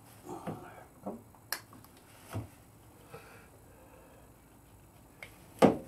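Scattered small clicks and knocks of metal motorcycle parts being handled, around the footpeg and its linkage, while they are oiled. The loudest is a sharp knock near the end.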